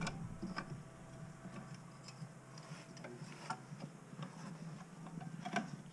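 Faint, irregular light clicks and taps, a few per second at most, over a low steady background hum.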